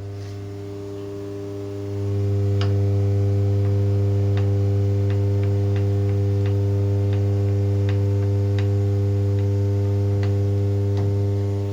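Startrite table saw's electric motor running with a steady mains-frequency hum, which swells louder about two seconds in. Light ticks sound here and there over it.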